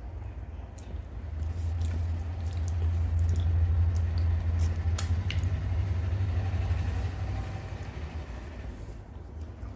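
Close wet chewing of mouthfuls of rice and dal, with small squishing and clicking sounds from fingers mixing food on a steel plate. Under it, a low rumble swells over a few seconds and fades again, and this is the loudest sound.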